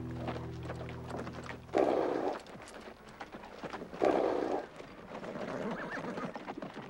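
Two gunshots about two seconds apart, each starting suddenly and ringing out for about half a second. A held chord of film score cuts off at the first shot.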